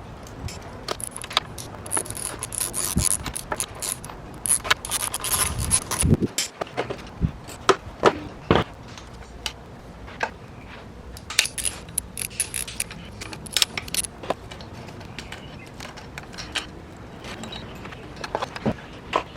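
Irregular metallic clicks, clinks and scrapes of hand tools working on engine parts.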